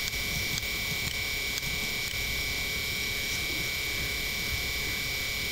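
Room tone with a steady electrical hiss and low hum, a thin steady high whine, and faint ticks about twice a second.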